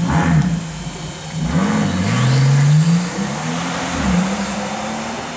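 Brabus G800 (Mercedes-AMG G65) twin-turbo V12 accelerating away through the gears. The engine pitch climbs and drops at each of several upshifts, and it fades near the end as the car draws off.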